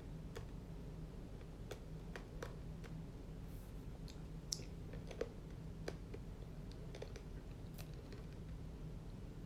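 Faint, irregular light clicks, roughly one a second, over a steady low hum in a small room.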